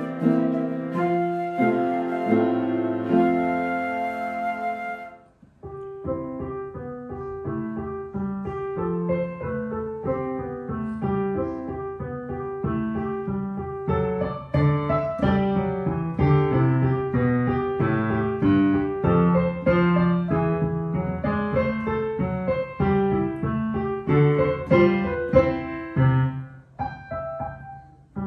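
A flute plays the last few long held notes of a piece and stops about five seconds in. After a short gap, a digital piano starts a new piece: a melody in the right hand over a steady left-hand bass.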